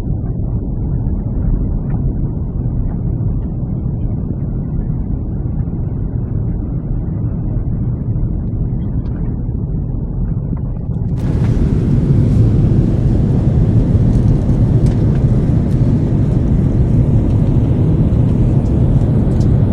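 Steady low rumble of a moving vehicle. About eleven seconds in it cuts to a slightly louder, brighter rumble with a hiss above it.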